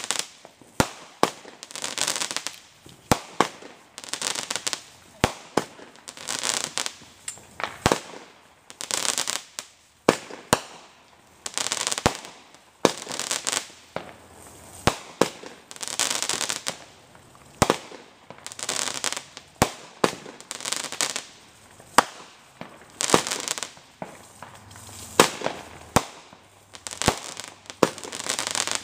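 Aerial fireworks bursting overhead: sharp bangs every second or two, each followed by about a second of crackling from the bursting stars.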